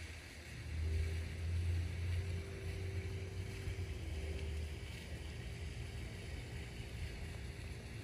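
Low rumble of wind on the microphone, strongest in the first half, over a faint steady hum.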